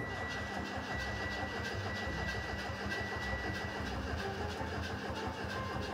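Starter cranking a Mitsubishi four-cylinder petrol engine steadily for several seconds without it firing. The engine, run on condensed milk in place of oil, shows no sign of life, which the owner puts down to zero compression.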